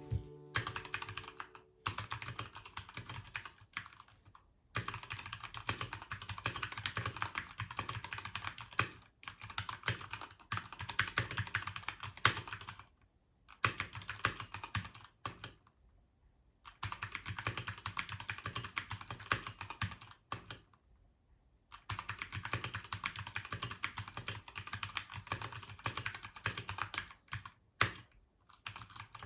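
Typing on a Keychron K2 wireless mechanical keyboard: quick runs of key clicks lasting a few seconds each, broken by short pauses.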